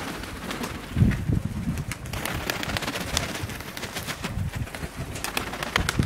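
Pigeons cooing, low soft calls repeating on and off, with scattered sharp clicks over them.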